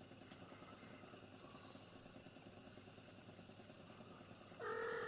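Near silence, then near the end a single drawn-out cat meow, steady in pitch and lasting about a second.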